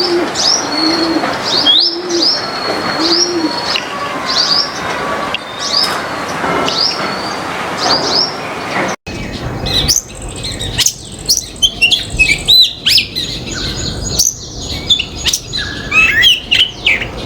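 Backyard birds calling: short high chirps repeated about once a second, with a low cooing note four times in the first few seconds. After a brief break about nine seconds in, comes a busier run of varied, quick calls.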